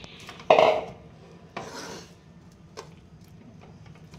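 A hand working rice flour in a steel bowl, making two short rubbing, scraping strokes against the metal. The first, about half a second in, is the louder. This is the mixing of rice flour and water into dough.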